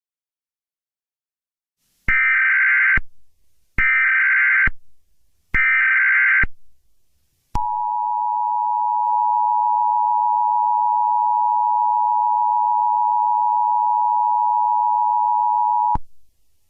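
Emergency Alert System broadcast tones. First come three short bursts of the SAME digital header, each about a second long with brief gaps between them. Then the steady two-tone EAS attention signal holds for about eight seconds and cuts off abruptly.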